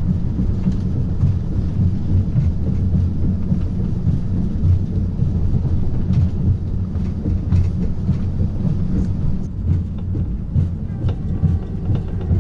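Inside a Strizh high-speed train coach running at speed: a steady low rumble of the wheels on the rails, with faint light clicks now and then.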